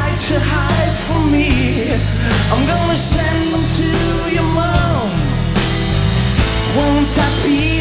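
Live rock band playing loudly: electric guitars over sustained, shifting bass notes, with bending melodic lines.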